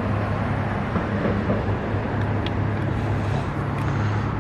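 Steady low engine hum with road traffic noise.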